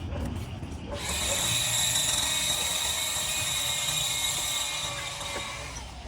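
A machine running with a steady high whine and a rattle, starting about a second in and fading out near the end.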